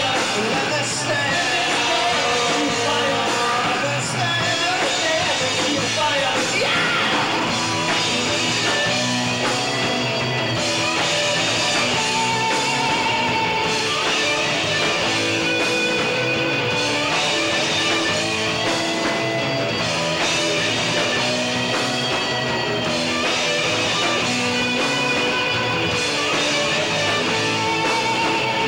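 Live rock band playing loud: distorted electric guitars over a drum kit, with a held, bending lead line on top. The sound is the room sound of a camcorder's built-in microphone.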